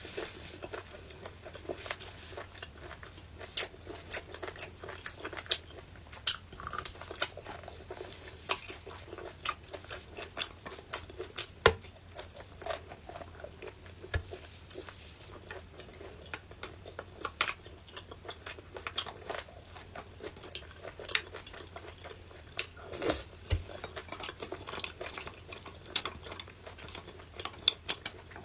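Irregular clicks and scrapes of a thin metal utensil against a roasted beef bone and the plate as marrow is dug out of the bone, with small handling noises in between.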